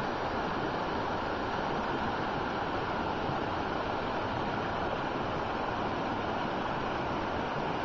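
Creek water rushing and splashing over rocks in a shallow rapid: a steady rush of water.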